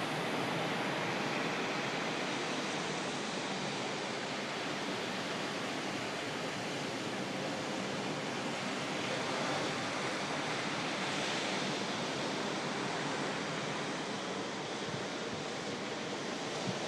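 Steady rush of ocean surf breaking on the beach.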